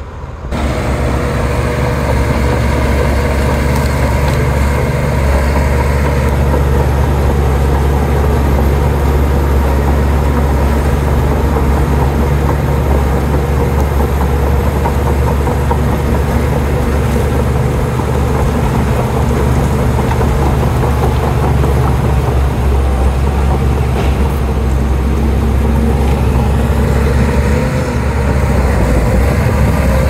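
Komatsu D53P crawler bulldozer's diesel engine running at a steady, deep drone, coming in suddenly about half a second in.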